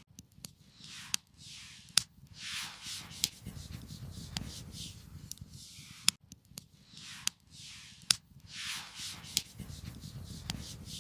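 Campfire crackling with scattered sharp pops, over repeated swishing, rubbing sounds.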